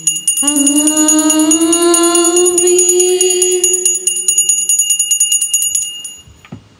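Altar bells shaken rapidly for the elevation of the newly consecrated host, ringing until about six seconds in. A long sustained sung note, rising slightly in pitch, runs under the bells for the first few seconds.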